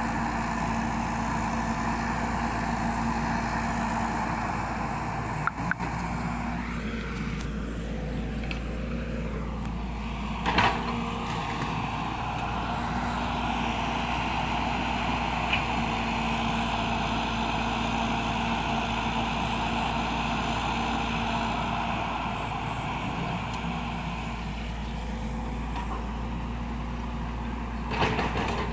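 Excavator engine running steadily, with a few sharp knocks, the loudest about ten seconds in.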